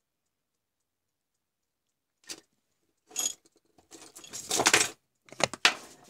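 Multimeter test probes and their leads knocking and rattling as they are handled and set down on a workbench, starting about two seconds in, with a longer clatter near the middle and two more sharp knocks near the end.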